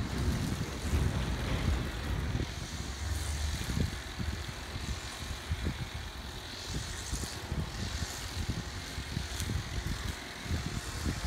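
Wind buffeting the microphone: an uneven, gusting low rumble with faint hiss above it.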